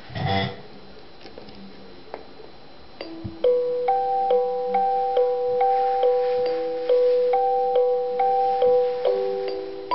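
Alarm clock with a starry-sky projector playing its built-in electronic melody, which starts about three seconds in: clean, bell-like notes, two to three a second. It follows a brief knock or rustle at the very start.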